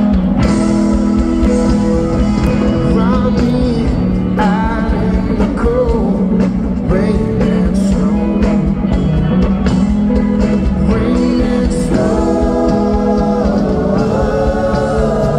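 Live rock band playing, with electric guitar and a man singing over the band.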